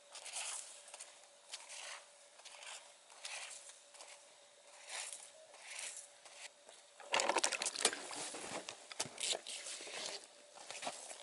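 Footsteps crunching in snow, about two steps a second. About seven seconds in they grow louder as the walker reaches the spot, becoming a dense jumble of crunching and scuffing in the packed snow.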